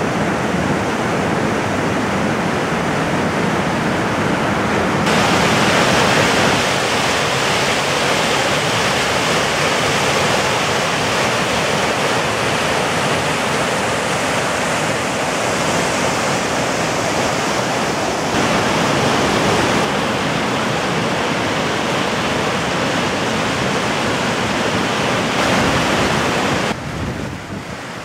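Swift Brook running high and rushing over rocky rapids in whitewater: a loud, steady rushing of water that changes character a few times and turns a little quieter near the end.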